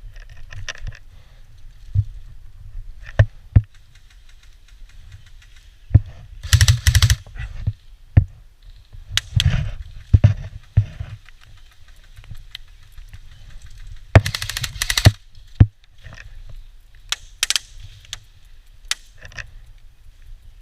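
Airsoft guns firing: scattered single sharp snaps, and two short bursts of rapid automatic fire, one about six seconds in and one about fourteen seconds in. A steady low rumble of wind on the microphone runs underneath.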